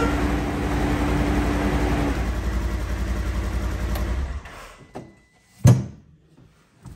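Polaris Ranger XP 1000's twin-cylinder engine idling with a steady low pulse, then cutting off suddenly about four seconds in as it is switched off. A single thump follows a little over a second later, with fainter knocks around it.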